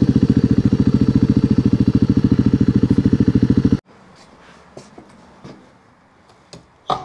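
Dual-sport motorcycle engine idling with a steady, rapid pulse that cuts off abruptly about four seconds in. After that it is much quieter, with a few faint knocks and one sharp knock near the end.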